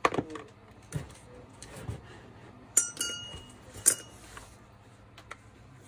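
Small metal parts handled and set down: a knock at the start and two lighter ones, then two sharp clinks with a short metallic ring about three and four seconds in, as of screws or a brush cap dropped into a steel parts dish.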